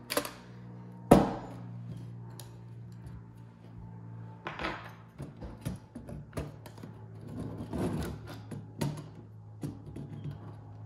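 Knocks and clicks from handling the metal chassis and tape transport mechanism of a Nakamichi 600 cassette deck: a sharp knock about a second in, as the chassis is set back down, then scattered lighter clicks and knocks as the mechanism is worked loose.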